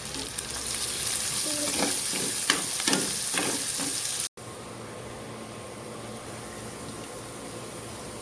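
Garlic, ginger and chili sizzling in hot oil in a pan, with a spatula scraping and knocking against the pan several times. A little over four seconds in, the sound cuts off abruptly, and a quieter steady hiss follows.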